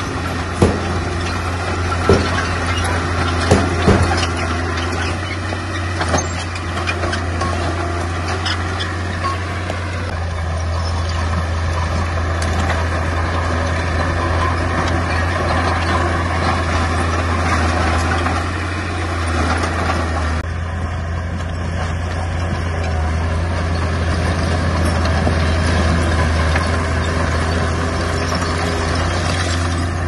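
Bulldozer's diesel engine running steadily under load, with a few sharp knocks in the first few seconds.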